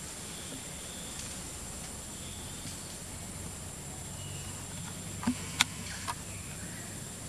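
Forest ambience: a steady hiss with a thin high-pitched whine, a few faint high chirps, and three sharp clicks in quick succession about five to six seconds in, the middle one the loudest.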